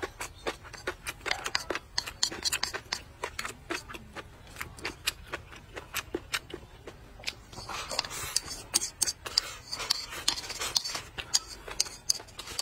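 Close-miked eating: chopsticks clicking and scraping against a bowl as food is shovelled into the mouth, with chewing between the rapid, irregular clicks.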